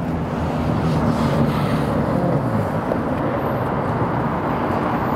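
Busy city street ambience: steady traffic noise with a low engine hum running underneath.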